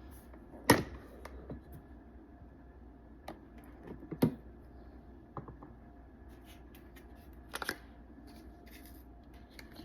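Sharp plastic clicks and knocks, a few louder ones spaced irregularly among fainter taps, from handling the coffee maker's single-serve pod holder, over a faint low hum.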